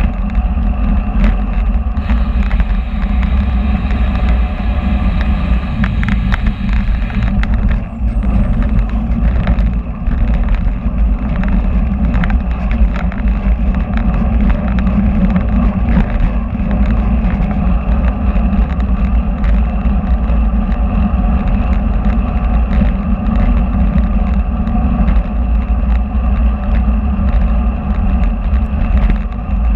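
Loud, steady wind buffeting and road rumble picked up by a camera mounted under the saddle of a moving bicycle.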